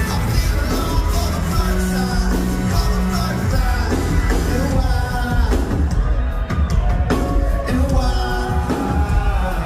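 Loud pop-rock music with singing over a heavy, steady bass.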